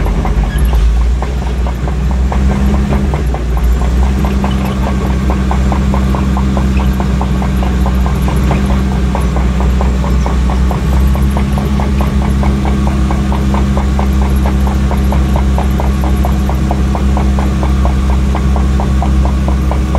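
Caterpillar D4H crawler dozer's diesel engine running steadily under load while push-loading a scraper, with a fast, even clatter from the tracks joining in a few seconds in.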